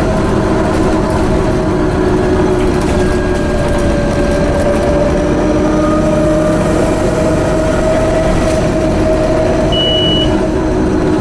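Scania OmniCity single-deck bus with a Scania DC9 diesel, heard from inside while under way. A steady whine from its broken differential sits over the engine drone, its pitch drifting slowly with road speed. A short high beep sounds about ten seconds in.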